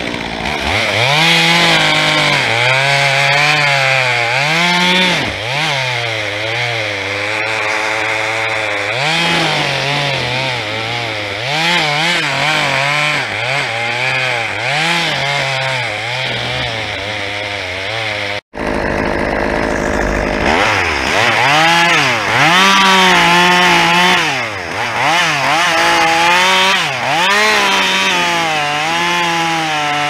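Two-stroke chainsaw cutting wood, its engine pitch sagging under load and climbing again as it revs, over and over. The sound drops out abruptly for a moment about two-thirds of the way through, then the saw resumes.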